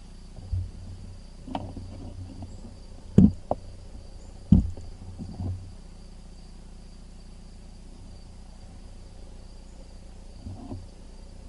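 Crickets chirping steadily in the background, with a series of dull low knocks and thumps, the two loudest about three and four and a half seconds in, and a couple of softer ones near the end.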